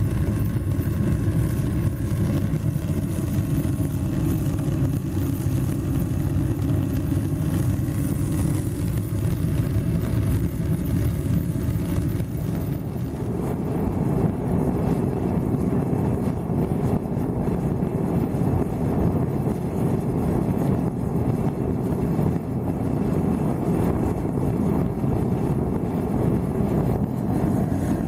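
Steady roar of a homemade furnace firing as it heats a steel slab to red heat. The sound turns deeper and fuller about halfway through.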